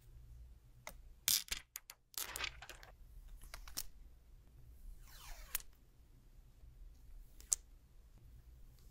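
Protective plastic film being peeled off the back of a Samsung Galaxy S22 Ultra, in a few quick noisy rips between about one and three seconds in. Later come a sliding sweep and a few sharp clicks as the phone is handled.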